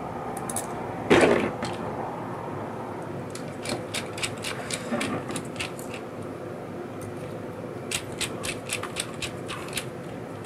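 Small screws being turned into a plastic instrument housing with a precision screwdriver: two runs of quick light clicks, several a second, with a single dull knock about a second in.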